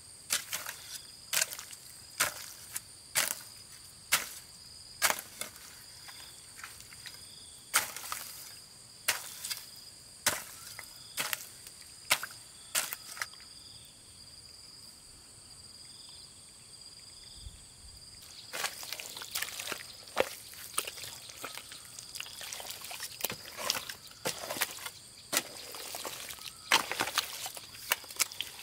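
Hoe chopping into wet, waterlogged mud with squelching, the strikes coming about once a second. The strokes stop for a few seconds about halfway through, then resume faster and denser. A steady high whine runs underneath.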